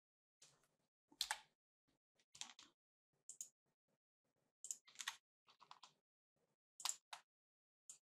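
Faint, scattered clicks of a computer mouse and keyboard, several in quick press-and-release pairs, with near silence between them.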